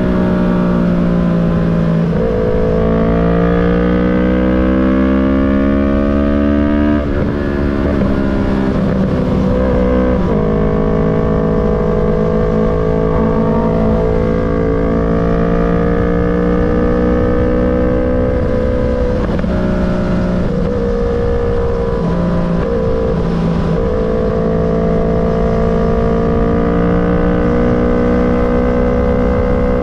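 Yamaha MT-03 motorcycle engine under way: the engine note climbs as it accelerates, drops with a gear change about seven seconds in, picks up again a few seconds later, then runs at a fairly steady pitch with a few brief dips from small throttle changes.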